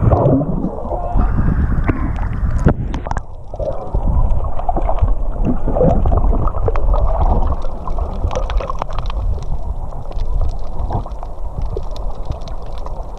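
Muffled water sloshing and gurgling around a snorkeller's camera, with a steady low rumble and scattered small clicks and pops.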